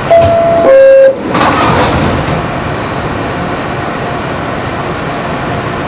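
R68 subway car's door-closing chime: two loud tones, the second lower, sounded just before departure. It is followed by the steady running noise of the train as it starts to pull out of the station.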